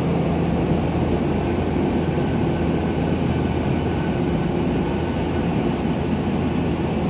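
Steady low hum of a Tokyo Metro 17000 series electric train standing at an underground station platform, its onboard equipment running.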